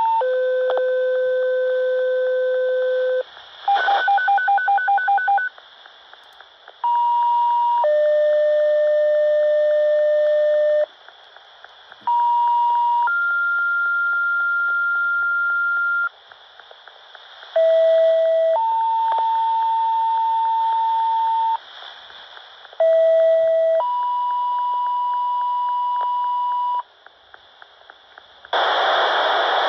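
Fire dispatch two-tone sequential paging tones over a scanner radio: five pages, each a short steady tone of about a second followed by a longer tone of about three seconds at a different pitch, setting off firefighters' pagers for a structure fire. Between the first and second pages a fast-pulsing tone alternates between two pitches, and near the end a burst of radio static comes in as the dispatcher keys up.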